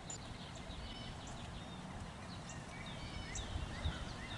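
Small birds chirping, many short quick calls that sweep downward, over a steady low outdoor rumble.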